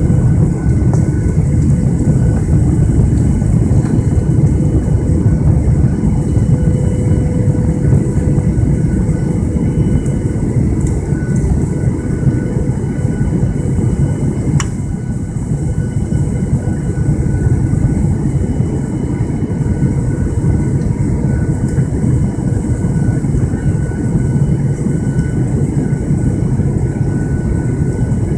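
Steady cabin noise of a Boeing 737-800 on its descent to land: the low rumble of its CFM56-7B engines and airflow, heard from a window seat over the wing, with a few faint steady tones. A single sharp click comes about halfway through.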